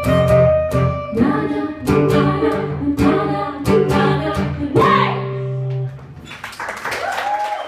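Two acoustic guitars strummed with two women singing, the song closing on a held chord that stops just under six seconds in. Audience applause follows.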